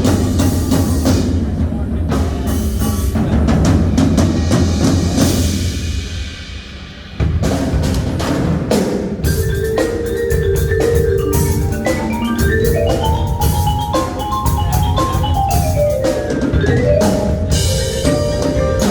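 Marching band percussion playing: drums with a front ensemble of marimbas and other mallet percussion. The sound thins out for a moment about six seconds in, then the full section comes back in sharply and quick mallet runs follow.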